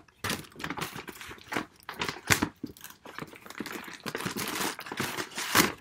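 Brown paper shopping bag crinkling and rustling as hands rummage inside it, in irregular crackles, the loudest about two seconds in and near the end.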